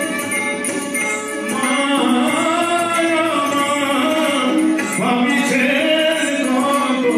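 A man singing a Bengali Agomani devotional song, drawing out long, gliding notes over musical accompaniment.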